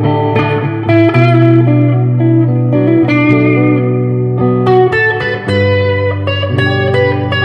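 Squier Classic Vibe 70s Jaguar electric guitar playing single-note lines over held low notes from a looped rhythm part, with a clean-to-lightly-driven amp tone.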